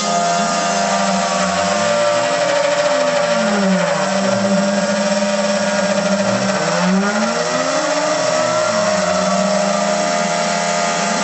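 CNC router milling 10 mm plywood: the spindle runs steadily while the cutter chews the wood, and the axis motors whine in tones that repeatedly rise and fall in pitch as the machine speeds up and slows down along its path.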